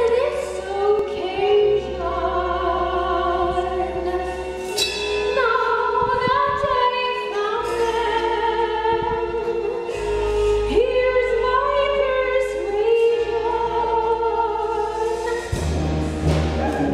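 Musical theatre song performed live: voices singing held notes with vibrato and sliding pitches over an instrumental accompaniment with low bass notes.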